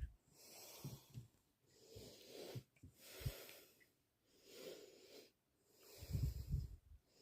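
A person breathing heavily and close to the microphone, in and out in a steady rhythm about once a second. Dull low thumps come in between, most of them together about six seconds in.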